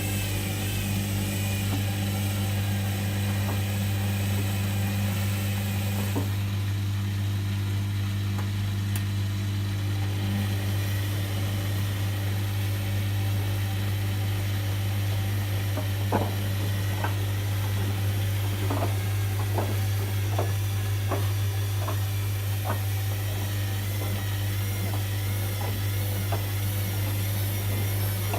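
Whirlpool washing machine running a synthetics 60° cycle: a steady low hum, joined in the second half by a scatter of light clicks and knocks.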